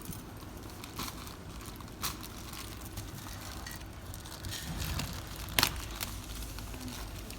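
Handling noise from unboxing a new futsal ball: faint crinkling and rustling of packaging with scattered small clicks, and one sharp click about five and a half seconds in.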